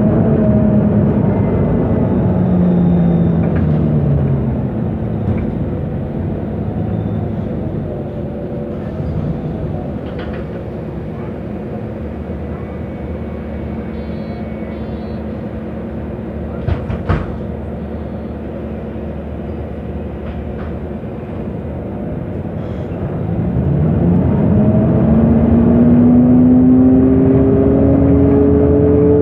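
MAN NG273 T4 articulated city bus running on LPG: the engine note falls as the bus slows, then runs quietly and steadily at idle, with a few sharp clicks about halfway through. The bus then pulls away, its engine note rising steadily over the last five seconds.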